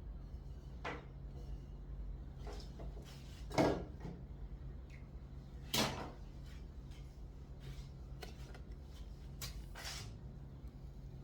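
A few scattered wooden knocks and clacks, the loudest about three and a half seconds in, over a steady low hum, as timber pieces and hand tools are handled at a carpentry workbench.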